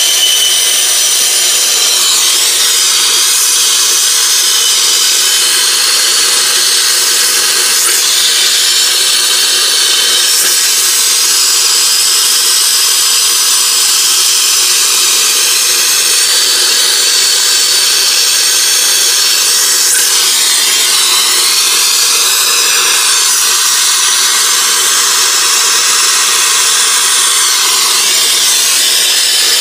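Brazing torch flame hissing steadily as it heats a copper line joint on an A-coil for silver soldering. The pitch of the hiss sweeps a little a couple of times as the flame moves, about two-thirds of the way in and near the end.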